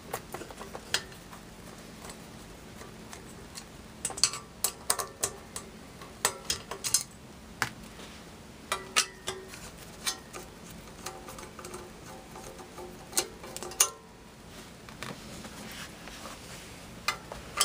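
Phillips screwdriver working the screws out of a commercial ice shaver's metal housing: scattered clusters of small metallic clicks and ticks as the tip engages and turns the screws.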